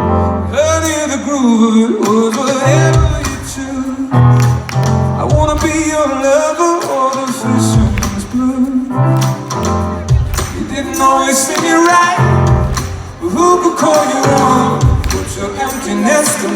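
Live band performance: a man singing over heavy bass notes and percussion, in a large hall.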